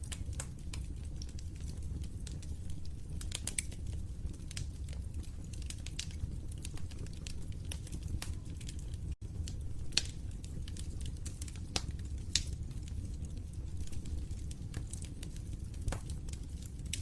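Fire crackling: a steady low rumble of burning with scattered sharp pops and snaps, a louder pop about ten seconds in. The sound cuts out for an instant just after nine seconds.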